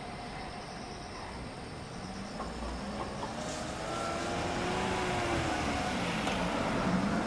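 A car passing close by, its engine and tyres growing louder and peaking near the end, over the sound of freight wagons rolling away along the track.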